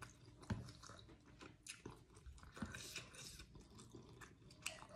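A person chewing food close to the microphone, faint, with small wet mouth clicks and light crunches scattered throughout and one sharper click about half a second in.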